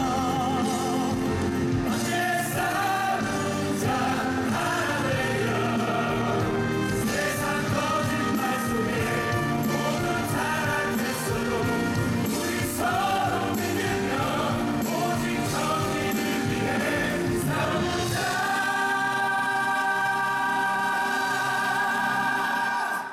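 Live musical-theatre singing: a male lead voice with the ensemble chorus over instrumental accompaniment. About 18 seconds in it settles into one long held chord, which cuts off suddenly at the end.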